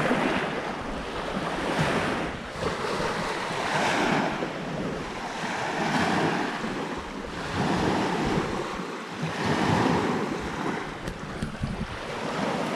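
Small Great Lakes waves breaking and washing up on a sandy beach, the wash swelling and easing about every two seconds.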